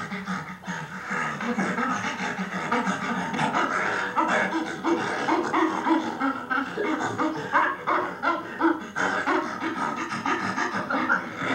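Chimpanzee laughing while being tickled: a breathy panting laugh in quick, repeated pants.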